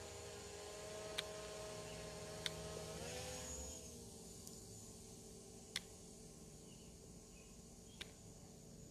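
Quadcopter drone's propellers humming faintly, the pitch rising about three seconds in and then settling lower as the motors change speed. Four sharp clicks sound through it.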